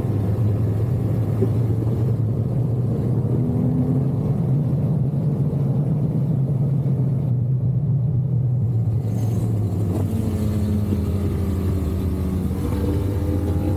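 BMW R1200 GSA's boxer-twin engine running steadily under way, its pitch climbing near the end as the throttle opens.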